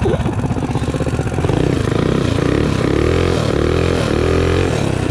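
Minibike's small single-cylinder four-stroke engine running under throttle while riding. Its pitch rises and falls several times in the second half as the throttle is worked.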